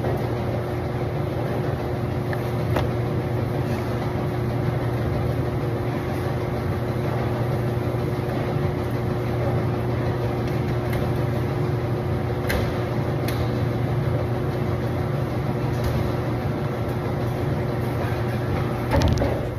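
Steady hum of a running clothes dryer, with a few faint clicks.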